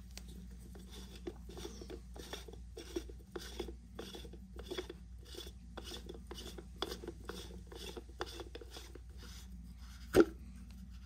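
Plastic water-in-fuel sensor being hand-threaded into the bottom of a Duramax fuel filter, its threads rubbing and scraping in short rasping strokes about two a second as it is turned. A single sharp click comes about ten seconds in.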